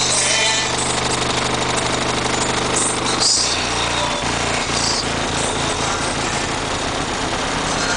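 Heavy bass music from two 18-inch Fi BTL subwoofers on an 800-watt Rockford Fosgate amplifier, heard inside the truck's cab and loud enough to flex the body. The bass line shifts about three seconds in.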